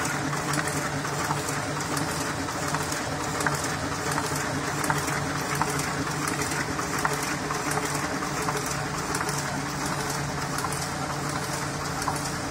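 Heidelberg sheet-fed offset printing press running: a steady mechanical hum of several fixed tones with a fine, continuous clatter of clicks.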